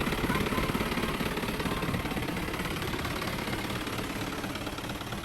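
A tractor engine running steadily, pulling a hay wagon, heard as a dense, even rumble with a fast low flutter.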